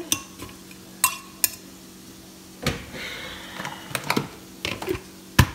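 Irregular knocks and clinks of a blender jar and its lid being handled, with ice inside, the sharpest knock a little after five seconds in; a low steady hum underneath.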